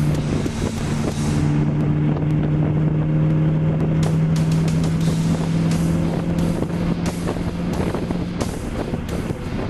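Ford Mustang running along a winding road, heard from inside the cabin: engine drone mixed with wind and road noise.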